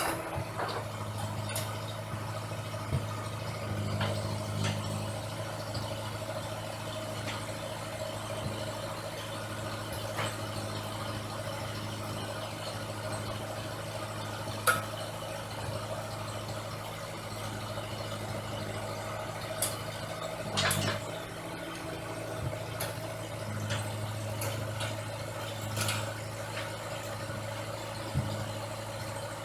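An engine idling steadily, with a few scattered clicks and knocks over it.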